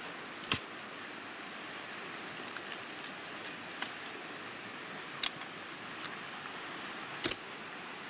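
A hoe striking the ground four times while digging to plant pineapple: sharp, irregularly spaced chops over a steady background hiss.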